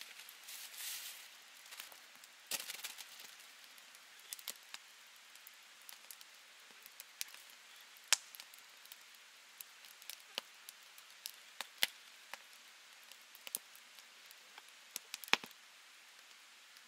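A paper sheet crinkling as it is spread over a stone slab, then a knife slicing mushrooms on it: sharp, irregular clicks about once a second as the blade cuts through onto the stone.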